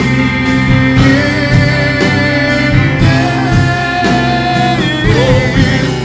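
Live worship band music in a slow gospel song: guitar and held chords over a steady beat, with a singer holding out a note.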